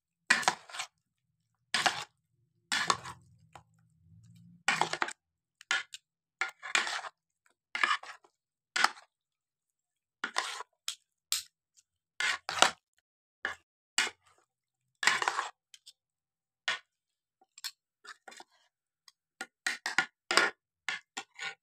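Two metal spoons scraping and clinking against a ceramic plate as raw chicken pieces are tossed in a thick yogurt-and-spice marinade. The strokes come in short, irregular bursts with silence between them.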